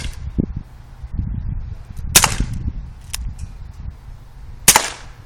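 Dan Wesson 4.5mm BB revolver, CO2-powered, firing two sharp cracking shots about two and a half seconds apart, with a lighter click between them.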